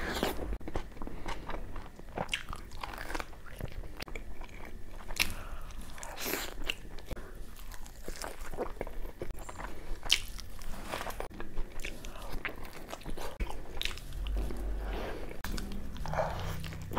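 A man biting and chewing puri soaked in mutton curry close to the microphone: irregular crunches, clicks and mouth sounds of eating.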